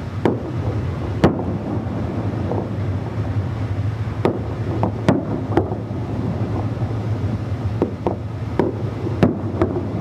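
Distant fireworks going off, about a dozen sharp bangs and pops at irregular intervals, several in quick clusters, over a steady low rumble of wind and harbour.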